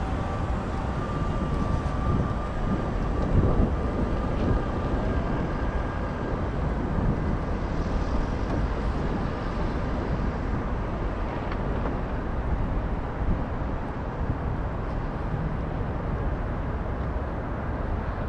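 Steady low outdoor rumble with no distinct events, with a faint high whine in the first few seconds.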